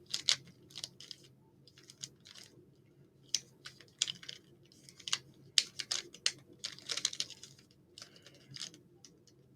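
Rubik's cube being turned by hand: quick runs of plastic clicks and clacks as the layers are twisted, with a short pause about three seconds in.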